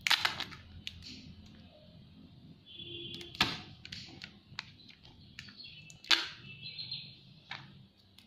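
A phone box and its packaging being opened by hand: a few sharp clicks and knocks with light scraping between them, birds chirping in the background.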